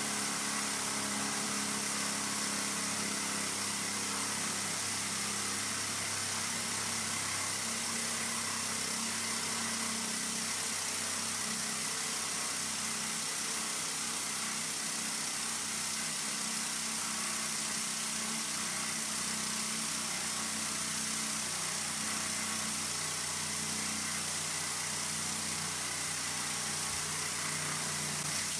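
Model Hero's steam engine (aeolipile) running under load: the brass sphere spins at about 660 rpm on steam from its 1.45 mm jets while winding up a string that lifts a 300 g water bottle. A steady hiss of steam jets over the gas burner, with a low steady hum beneath, unchanging throughout.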